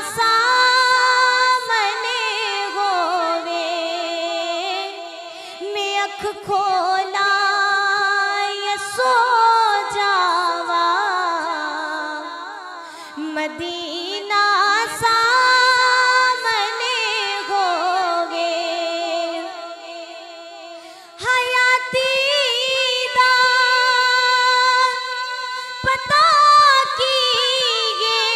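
A woman singing an Urdu naat (Islamic devotional song) solo into a microphone, in long held, ornamented phrases, with a short breath pause about two-thirds of the way through.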